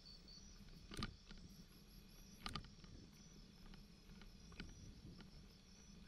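Quiet bicycle ride over a bumpy dirt track: a low rumble of the tyres with a few sharp knocks from the bike and camera mount jolting over bumps, the loudest about a second in and again about two and a half seconds in.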